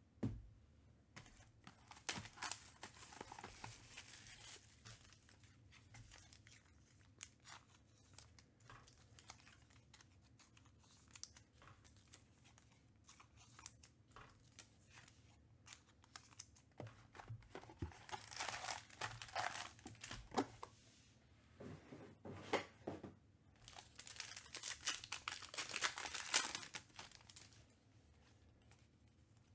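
Trading card pack wrappers being torn open and crinkled, in spells of tearing and rustling: a short one near the start and longer ones through the second half. Light clicks of handling come in between.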